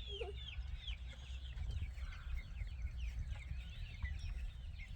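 Chickens clucking, many short overlapping calls throughout, over a steady low rumble.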